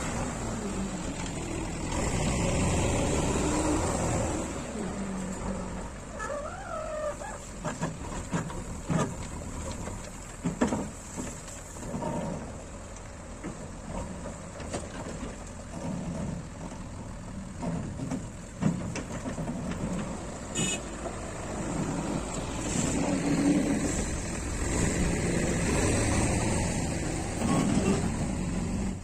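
JCB backhoe loader's diesel engine running and revving as it works its loader bucket, with knocks and clatter around the middle as gravel is tipped into a tipper lorry's bed. Near the end the loaded lorry's diesel engine pulls away.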